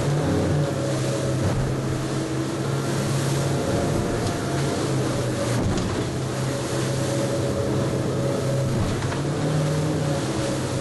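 Fishing boat's engine running steadily with a low hum, over a constant rush of sea and wind noise.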